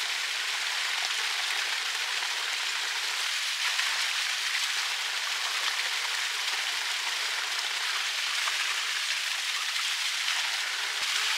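Spring water pouring from a stone spout and splashing onto wet rocks below, a steady rush of falling water.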